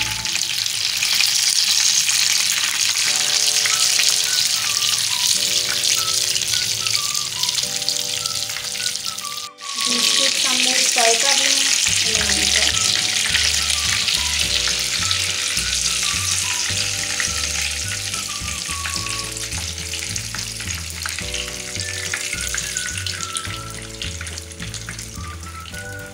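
Hot oil sizzling steadily as breadcrumb-coated chicken skewers shallow-fry in a pan. It cuts out for a moment about nine seconds in and eases off toward the end. Background music with a repeating bass line plays over it.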